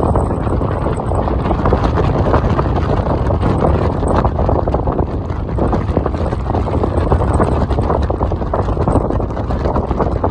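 Strong wind buffeting the microphone: a loud, continuous rumble with crackling gusts.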